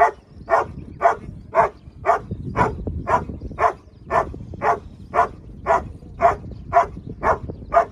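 German shepherd barking steadily at a helper in the hiding blind, the hold-and-bark of the protection phase. About two loud, even barks a second, with no break.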